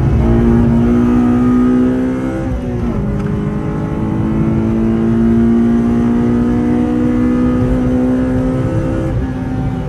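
Honda Civic Type R FD2's four-cylinder engine pulling hard, its pitch climbing steadily through a gear. About two and a half seconds in the pitch drops with a gear change, then climbs again in a long pull until it falls away near the end. Heard from inside the cabin.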